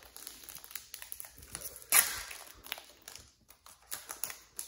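Plastic wrapper of a trading-card pack crinkling as it is handled and opened, with one loud crackle about two seconds in.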